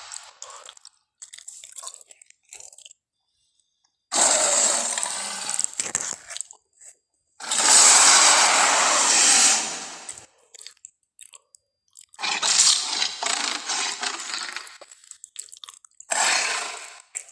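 Tyrannosaurus rex sound effects: four loud, rough, unpitched bursts, each one to three seconds long, with short silent gaps between them.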